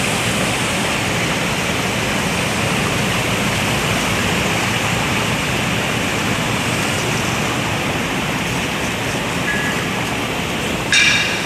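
Bubble washing machine for cabbage running: water churning steadily with air bubbling through it. A short metallic clink near the end.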